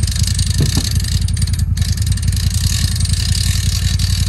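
Side-by-side UTV's engine idling steadily, a low pulsing rumble with a hiss above it.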